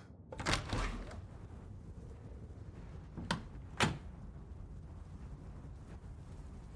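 Door sound effect: a soft scrape about half a second in, then two sharp knocks about half a second apart a little over three seconds in, over a steady faint hiss.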